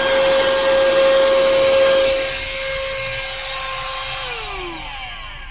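Xiaomi Youpin Coclean cordless handheld car vacuum running with a steady high whine over rushing air, then switched off a little past four seconds in, the motor whine falling in pitch as it spins down.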